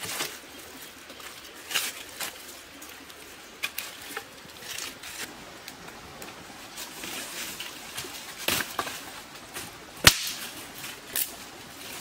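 Dry sticks being snapped and struck by hand over dry leaf litter: scattered sharp cracks between soft rustling, with the loudest crack about ten seconds in.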